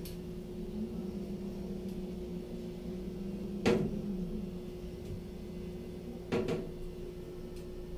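Two sharp knocks, a little under three seconds apart, the second a quick short rattle of several strokes, over a steady low hum.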